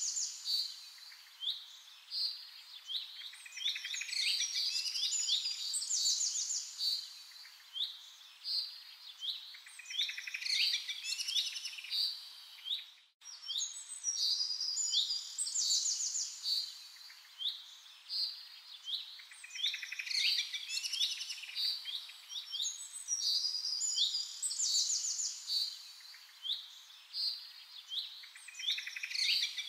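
Many songbirds chirping and singing together in a dense chorus of short repeated calls and trills. About 13 seconds in the sound cuts out for a split second, and the same stretch of birdsong then repeats.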